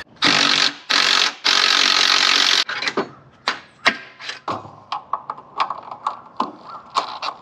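A cordless power driver runs in three bursts, the last about a second long, backing out bolts during engine removal from a scooter frame. Then a hand ratchet clicks in quick, uneven strokes.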